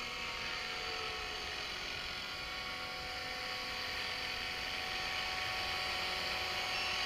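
Electric T-Rex 450 RC helicopter hovering: the steady whine of its motor and gears over the whoosh of the rotor blades, slowly growing louder as it comes closer.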